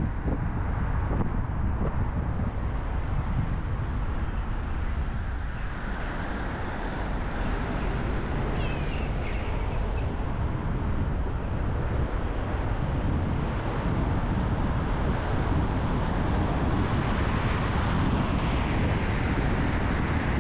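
Steady low rumble of a car driving in traffic. About nine seconds in there is a brief cluster of short high-pitched sounds.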